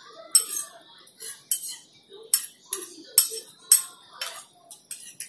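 Metal spoon clinking and scraping against a small ceramic bowl in a run of about eight sharp clinks, roughly two a second, as the last spoonfuls are scooped from the bowl.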